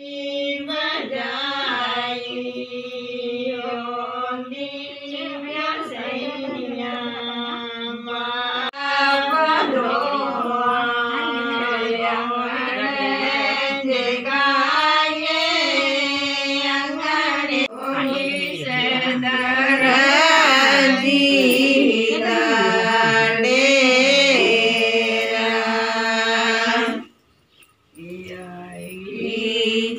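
A chant sung in Indian devotional style over a steady held drone, continuous until it stops abruptly about three seconds before the end.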